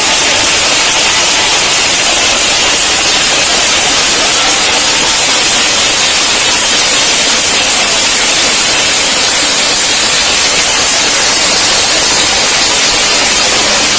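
Large crowd clapping and beating steel plates (thalis), a dense, continuous clatter with no pauses.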